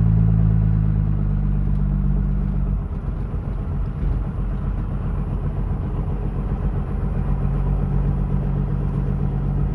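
A vehicle being driven: a steady low engine hum that turns into a rougher, uneven rumble about three seconds in.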